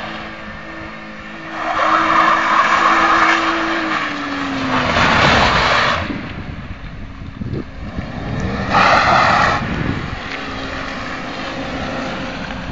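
BMW engine held at high revs while the car drifts on wet asphalt, its pitch holding steady and then falling about four seconds in. Three bursts of tyre noise come as the rear wheels spin and slide: a couple of seconds long from about a second and a half in, again around five seconds, and a shorter one around nine seconds.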